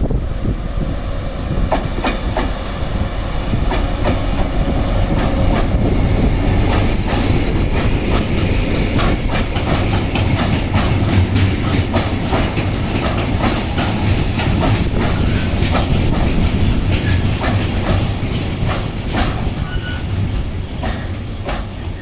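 A locomotive-hauled train of track-repair wagons passing close by: a steady low rumble with a run of wheel clicks over the rail joints. A thin, high wheel squeal sets in near the end.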